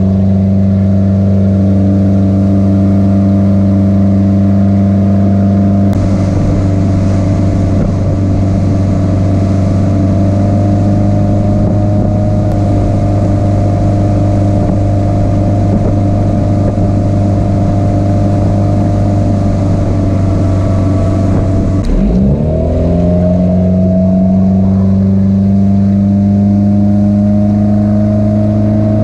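Motorboat engine running steadily at speed while towing a rider, with water churning in the wake. A little over two-thirds of the way through, the engine note dips briefly and climbs back.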